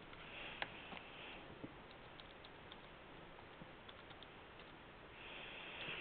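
Faint marker strokes scratching on paper, then a run of soft clicks from TI-84 Plus graphing calculator keys being pressed, with a scratchy rustle over the paper near the end.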